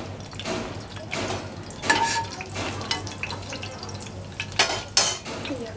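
Cumin and mustard seeds crackling and spluttering in hot oil in a small pan, the tempering stage of the cooking, with a spatula stirring through them. A few sharper, louder snaps stand out about two seconds in and near the end.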